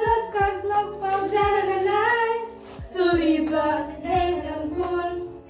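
A woman singing a melody in Assamese, holding long notes with short breaks between phrases.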